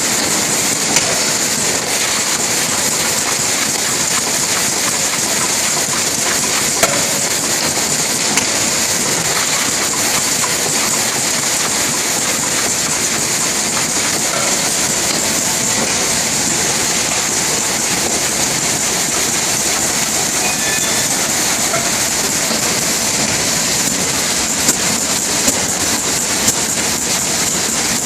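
Rotary pouch packaging machine running: a steady, dense mechanical clatter with a constant high hiss and an occasional sharper click.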